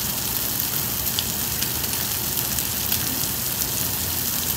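Meat sizzling on a Korean barbecue tabletop grill plate: a steady hiss with small crackles.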